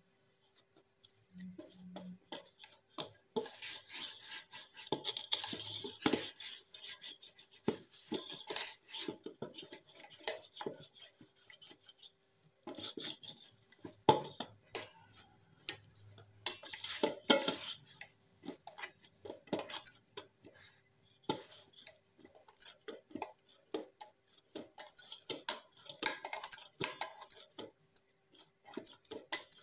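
Hands mixing and kneading a damp radish-and-flour dough in a steel bowl: irregular knocks, taps and scrapes of hands and dough against the metal.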